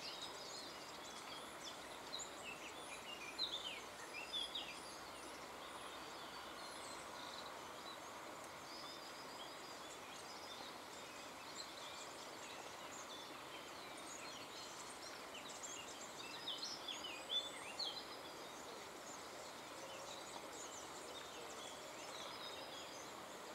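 Small songbirds chirping and twittering in short high notes over a steady background hiss, with the liveliest bursts about three seconds in and again around seventeen seconds.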